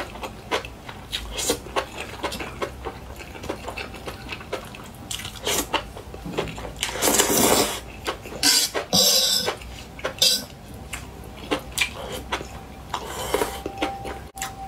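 Close-miked eating sounds: chopsticks clicking and scraping on a metal tray, wet chewing and slurping of enoki mushrooms in sauce, with a couple of longer slurps about halfway through.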